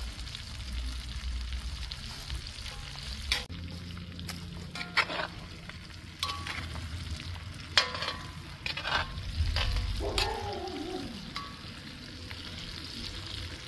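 Chicken, onion and carrots sizzling in hot oil in a cast-iron kazan, with a metal spatula stirring and scraping against the pan in several sharp strokes.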